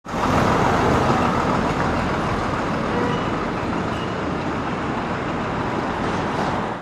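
Steady road traffic noise on a city street, vehicles driving past; it cuts off suddenly at the end.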